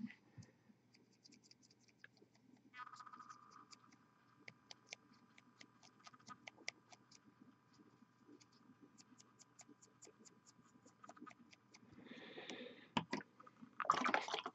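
Faint scratching and light ticks of a fine paintbrush and fingertips working on a small plastic miniature held in the hand, under a faint steady high whine that comes in about three seconds in. A louder rustle comes near the end.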